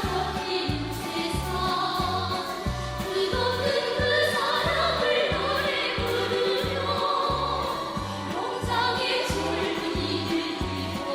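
North Korean pop music: a chorus of voices singing over a steady bass beat.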